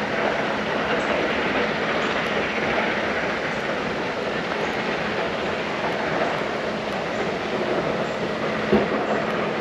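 River water rushing: a steady, even hiss of flowing water.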